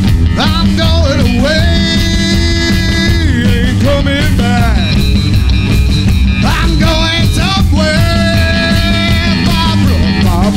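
A live rock band playing, with drum kit and electric guitar, under long held lead notes that swoop up at the start of each phrase, in three phrases.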